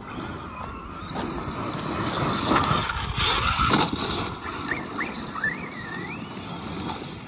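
Large-scale brushless electric RC trucks driving hard on loose gravel, their tyres churning and spraying stones. The loudest bursts come about two and a half to four seconds in.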